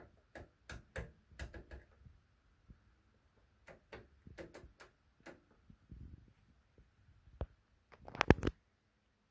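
Rotary selector switches on a Kenwood KA-990V amplifier clicking through their detents as the knobs are turned: a series of short, sharp clicks, with a louder cluster of clicks near the end.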